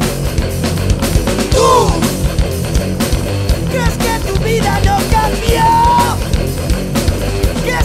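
Rock band recording playing: distorted electric guitars, bass and drums, with a melody line coming in over them about one and a half seconds in.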